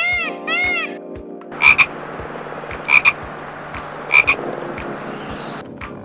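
Peacock giving three short, loud calls, each about a second and a quarter apart, over a steady background hiss. Light music plays in the first second.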